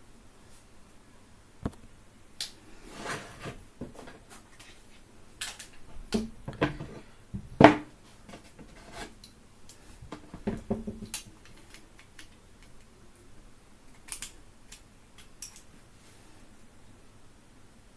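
Metal tools clicking and clattering against a circuit board while the amplifier ICs are being desoldered. The handling comes in irregular clusters, with the sharpest click about eight seconds in.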